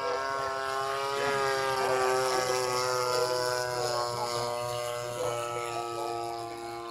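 Large radio-controlled model airplane's engine and propeller running in flight, a steady buzzing drone that grows louder and then fades a little as it passes.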